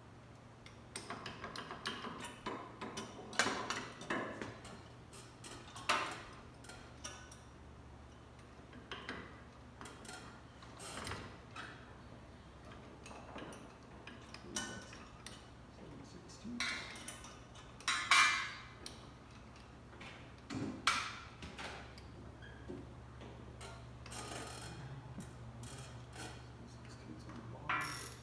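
Hand tools and metal engine parts clicking, tapping and clinking at irregular intervals during mechanical work, with a few sharper knocks, over the steady low hum of a shop fan.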